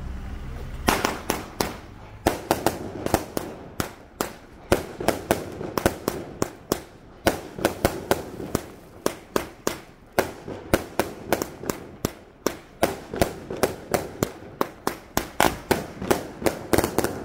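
Fireworks fired in a rapid barrage from the ground, a dense, uneven string of sharp bangs about three a second. The bangs start about a second in and cut off abruptly near the end.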